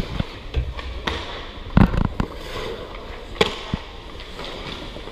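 Ice hockey sticks and pucks at practice: a series of sharp cracks as pucks are shot and strike pads, sticks and boards. The loudest are a cluster about two seconds in and another about three and a half seconds in.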